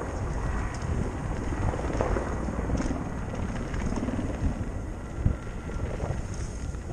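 Mountain bike riding fast down a dirt trail: steady rumble of wind on the camera microphone, tyres rolling over dirt and the bike rattling, with a sharp knock about five seconds in.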